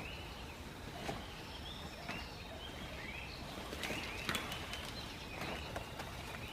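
Forest birds calling with a run of short, arched chirps, repeated every second or so, over a steady background of forest ambience, with a few sharp knocks or cracks in between.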